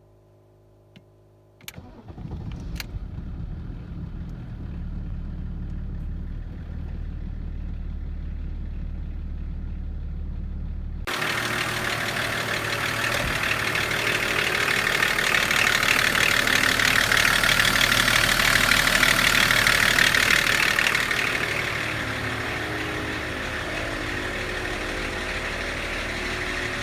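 BMW E34 525tds's 2.5-litre turbodiesel straight-six cranking and starting about two seconds in, then idling with a deep, steady low note. About halfway through the sound changes suddenly to a louder, brighter engine sound that swells and then eases off near the end.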